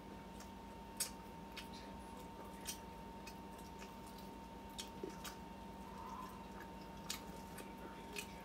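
Quiet chewing and wet mouth sounds as braised pork is pulled off the bone by hand and eaten, with scattered soft clicks and smacks about once a second, over a steady low hum.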